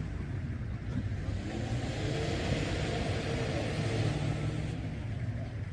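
A vehicle's engine running with a steady low hum, and a broader noise rising over it in the middle of the stretch before easing off.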